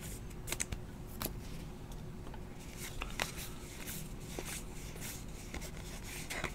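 Baseball trading cards being flipped through by hand: faint, irregular soft clicks and slides of card against card.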